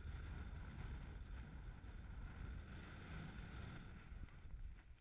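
Wind buffeting the microphone: a steady, churning low rumble.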